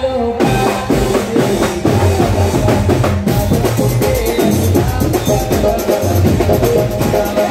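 Live band music without singing: a fast, steady drum beat with a melody played over it, an instrumental stretch between sung lines of the song.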